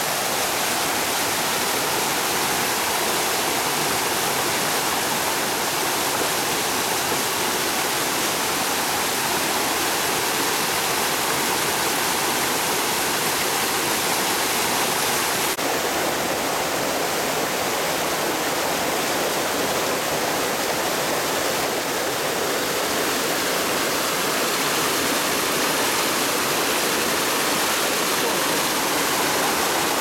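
Small stream rushing and splashing over boulders in little cascades, a steady rush of water. About halfway through the rush changes abruptly in tone.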